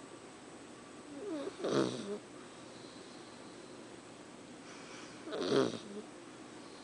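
Sleeping puppy snoring: two snores, about four seconds apart.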